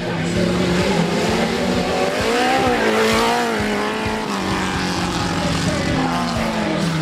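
Engine of a competition off-road jeep revving hard, its pitch climbing and falling back about three seconds in.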